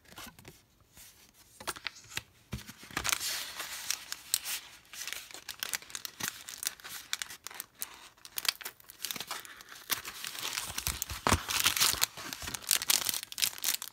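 Packaging being handled and torn open: irregular crinkling and tearing crackles that start about a second and a half in and carry on densely.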